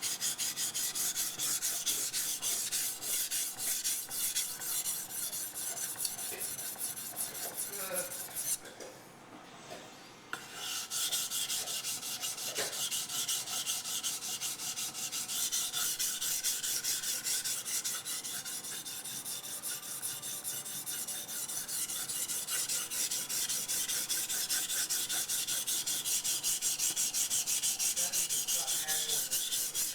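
Blade of a Becker BK9 knife being stroked over a bench waterstone in short, rapid, evenly repeated strokes, a steady scraping rub. The strokes break off for about two seconds around nine seconds in, then resume.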